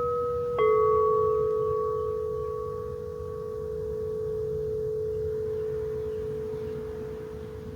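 Two singing bowls ringing. One, struck a moment earlier, is still sounding when a second bowl with a slightly lower pitch is struck about half a second in. Their tones sustain together and fade slowly.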